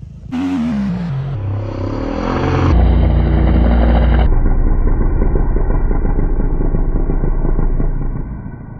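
Dirt bike engine running hard at high revs through a motocross jump. Its note falls about a second in, then it runs on as a heavy low pulsing sound that grows duller in steps and stops about eight seconds in.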